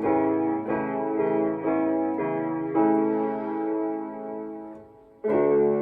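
Piano playing held chords, a new chord struck about every second. The sound fades almost away near the end, then a loud chord comes in just before the end.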